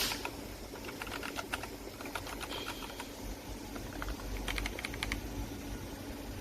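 Typing on a SHAVALIFE K87 mechanical keyboard with PBT keycaps: irregular key clicks, with a quick flurry of keystrokes a little after halfway through.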